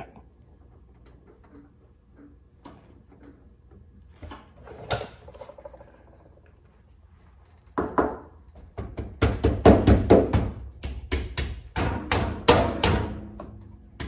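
Mostly quiet at first. Then from about eight seconds in comes a rapid, irregular series of sharp knocks and thumps over a low rumble: handling noise from a hand knocking against the camera close to the microphone.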